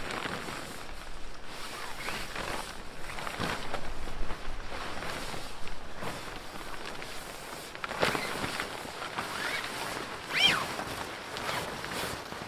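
Tarp fabric rustling and footsteps while a tarp tent is being pitched and adjusted, with scattered light knocks. About ten seconds in a brief high squeak rises and falls.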